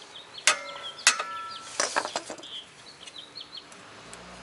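Two sharp hammer blows on steel about half a second apart, each with a brief metallic ring, knocking the tie rod end's taper loose from the steering knuckle of a MK4 VW's front suspension; a few lighter metal clinks follow.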